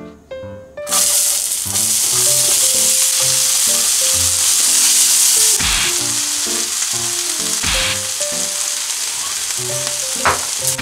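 Diced onion sizzling in a hot frying pan, starting suddenly about a second in as the onion goes into the pan and then going on steadily. Three dull thumps from the pan or spatula come along the way.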